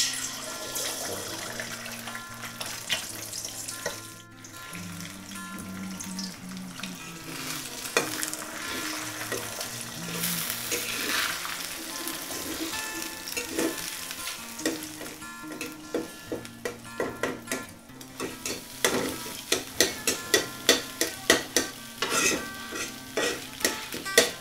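Eggs sizzling as they fry in hot oil in a metal wok. A metal spatula scrapes and knocks against the pan as they are scrambled, in quick repeated strokes near the end.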